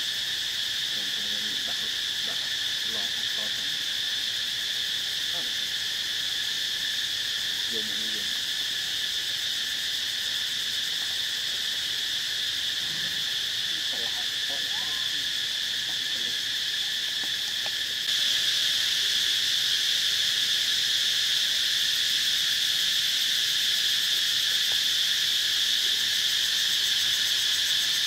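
Steady, high-pitched drone of a chorus of insects, growing louder about two-thirds of the way through.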